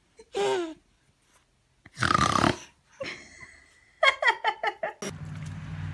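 A baby's short laughing squeal, then a half-second noisy burst about two seconds in, then a quick run of laughs, about six a second, about four seconds in. A steady low hum follows a cut near the end.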